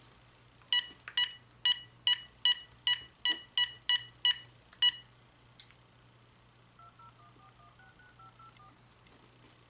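Keypad beeps from a GE 900 MHz cordless phone handset as a phone number is keyed in for a test call: about eleven short beeps, two to three a second. A click follows, then a faint run of touch-tone pairs as the number is dialed out.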